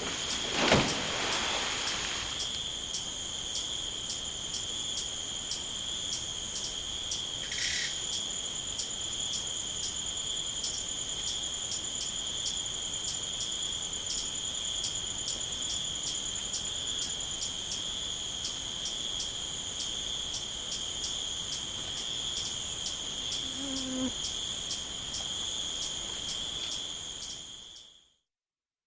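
Night insects, crickets, chirping steadily: a continuous high trill with a faster pulsed chirping above it, about four pulses a second. A short louder sound comes about a second in, and a brief bird call about eight seconds in. Everything fades out near the end.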